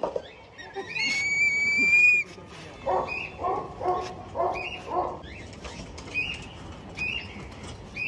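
A long high whistle about a second in, then a dog barking, about five barks in quick succession in the middle. Short high chirps follow near the end.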